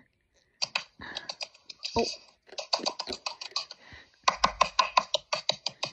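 Fingers patting serum into the skin of the face: irregular quick runs of light taps and clicks, several a second, getting denser in the second half.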